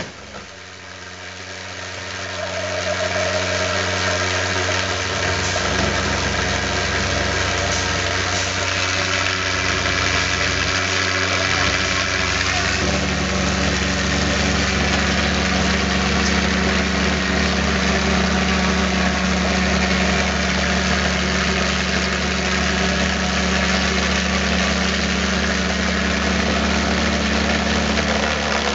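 Valveless pulsejet engine running, a steady loud drone with a strong pitch that swells over the first few seconds and shifts its low note about halfway through.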